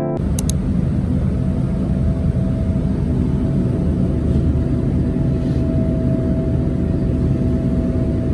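Bus engine running, heard from inside the passenger cabin: a steady low rumble with a steady whine over it.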